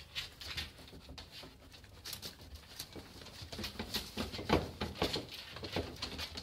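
West Highland white terriers' claws tapping and scrabbling on a tabletop as they move about on it: a quick, uneven run of clicks and scrapes, busier from about three and a half seconds in.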